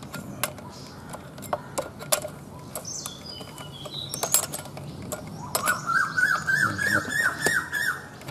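Scattered metallic clicks and taps of a spanner working the bar nuts on a chainsaw. A bird calls with a few short whistles, then a quick series of rising chirps over the last few seconds.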